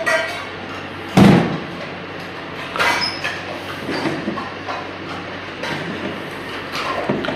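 Oven toaster griller being opened and its metal tray handled: a loud clunk about a second in, then a few lighter metallic knocks and scrapes.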